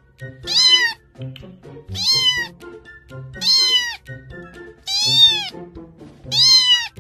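Cat meowing: five loud meows about a second and a half apart, each rising and then falling in pitch, over background music.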